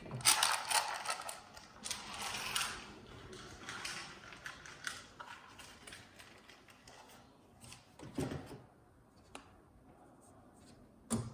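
Plastic parts of a flat-screen TV being handled during disassembly: a busy run of clicks, rattles and scraping in the first few seconds, then quieter, with a couple of separate knocks later on.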